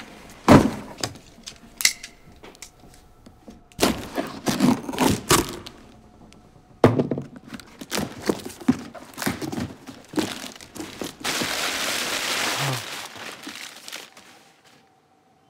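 A taped, gift-wrapped cardboard box being handled and torn open: a run of knocks, thuds and crinkles, then a long rip of paper and tape about eleven seconds in that lasts about a second and a half.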